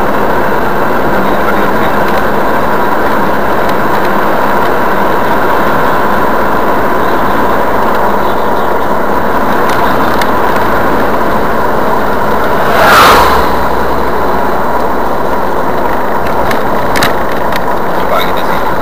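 Steady road and engine noise of a car driving at highway speed, heard inside its cabin. About 13 seconds in comes a brief, louder rush of noise, and there is a faint click near the end.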